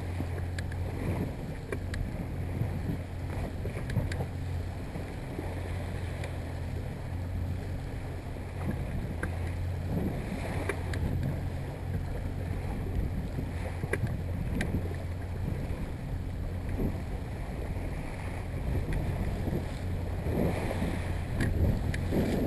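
Yamaha 70 hp outboard motor running steadily at trolling speed, about 1,200 RPM, a low even hum. Water splashes against the hull and wind buffets the microphone, a little louder near the end.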